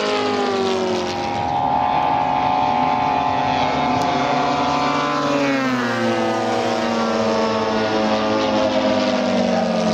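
Several large radio-controlled WW2 warbird models flying together, their propeller engines droning at different pitches at once. Groups of the engine notes fall in pitch as the planes pass, just after the start and again about halfway through.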